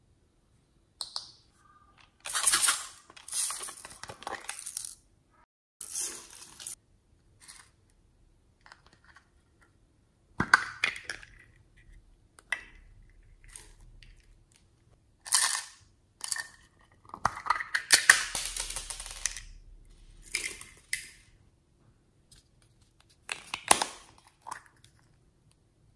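Small plastic pots of beads, sprinkles and glitter being handled and tipped out onto a tray of slime: a series of short rattling, clattering bursts with quiet gaps between them. The longest burst comes a little after halfway.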